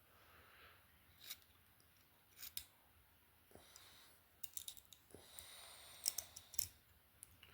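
Small metal-and-plastic multi-tool being handled, giving scattered light clicks as its blade slides out and is worked against a plastic lock, which does not catch at first. The clicks are bunched, with the densest run in the second half.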